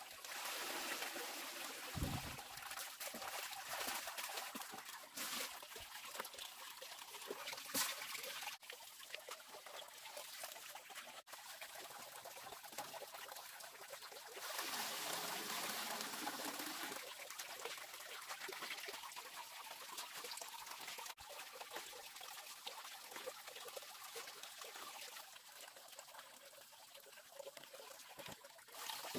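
Water trickling and sloshing as hands work soaked rice in plastic basins of leaf-dyed water, with scattered small knocks. The sloshing grows louder for a few seconds about halfway through.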